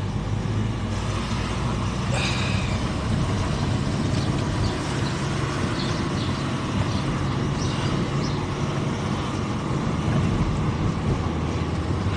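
Car engine and road noise while driving: a steady low hum over a constant rush of tyre noise, with a few brief higher-pitched sounds about two seconds in and again near eight seconds.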